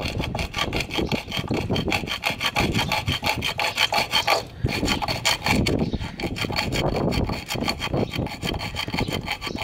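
Hand-held hacksaw blade rasping back and forth in quick strokes, cutting a straight slot into the five-sided Torx security screw head of a Toyota idle air control valve on the throttle body, with a brief pause about halfway.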